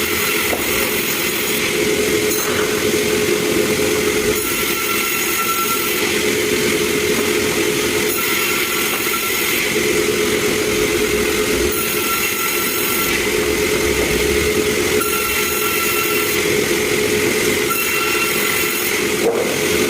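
Wood sawmill machinery running steadily with a constant hum. A higher, hissing whine comes and goes every three to four seconds.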